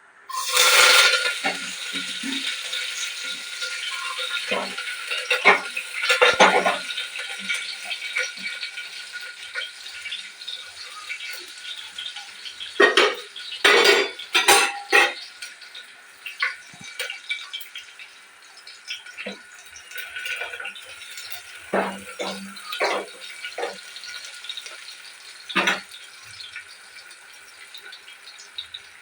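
Cooking in a pan: a steady hiss sets in suddenly just after the start and slowly fades, while a spoon clinks, knocks and scrapes against the pan in scattered strokes, with a cluster of louder knocks about halfway through.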